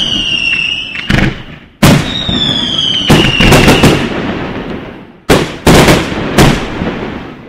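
Aerial fireworks shells bursting: a series of loud bangs, some in quick clusters, each trailing off in a long echo. A high whistle falls slowly in pitch between about two and four seconds in.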